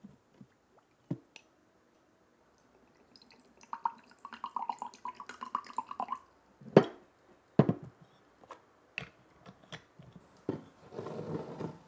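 Whisky poured from a glass bottle into a drinking glass, gurgling for about two and a half seconds. Two sharp knocks follow as the bottle and glass are set down on a wooden table, then a few lighter clicks and a short, softer rush of sound near the end.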